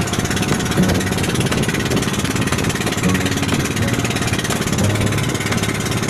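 Engine of a motorized outrigger boat (bangka) running steadily with a fast, even beat.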